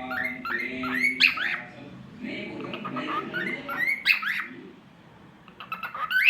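Cockatiel singing in three runs of quick rising whistled chirps. Each run climbs to higher, louder notes, with a short pause before the last run near the end.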